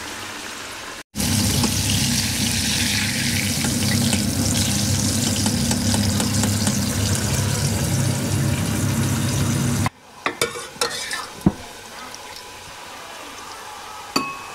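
Hot oil sizzling and bubbling as food deep-fries in a saucepan, a loud, even hiss with a low hum underneath. It cuts off abruptly about ten seconds in, leaving a few light clinks and knocks of kitchen utensils.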